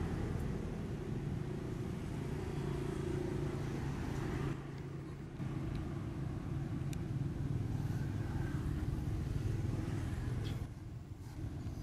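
A motor engine running steadily at low revs, a low rumble with a steady hum that dips briefly twice.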